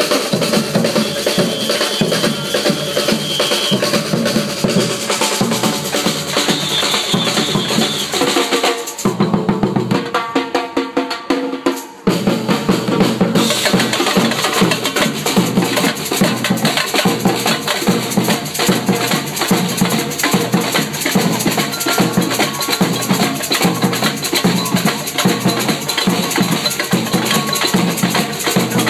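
Samba-style street percussion band playing a fast, dense groove on surdo bass drums, snare and other drums. About nine seconds in the high drums drop out for a sparser break of about three seconds, then the full band comes back in at once.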